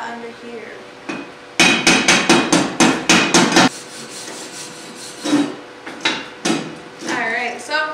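Steel chipping hammer rapping quickly along a fresh stick weld on steel plate, about a dozen sharp strikes in two seconds, knocking the flux slag off the 7018 weld bead. A few lighter knocks follow near the end.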